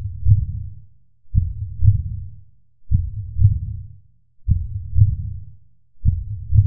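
Slow heartbeat, each beat a deep lub-dub pair, repeating evenly about every second and a half.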